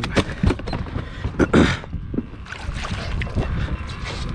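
Knocks and thumps of a plastic cooler on a boat deck: the lid is lifted and the catch handled inside before the lid is shut again. The loudest thumps come about a second and a half in.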